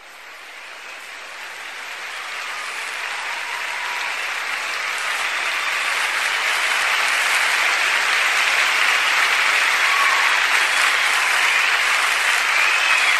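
Live audience applauding, fading in and growing steadily louder over the first several seconds, then holding at full strength.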